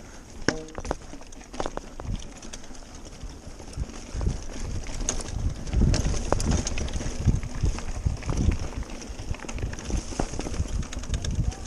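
Mountain bike ridden over a rough dirt singletrack: the bike rattles and knocks irregularly over bumps and stones, over a low rumble that grows heavier about four seconds in.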